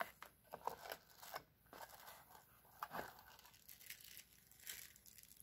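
A small plastic packaging bag crinkling and being torn open by hand, in scattered quiet rustles and crackles.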